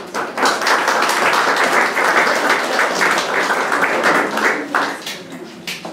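A crowd applauding: dense clapping from many hands, which dies away near the end.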